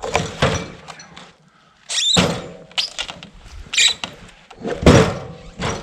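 Several heavy knocks and clunks from a log being shifted on a portable sawmill, with a brief high metallic squeal about two seconds in.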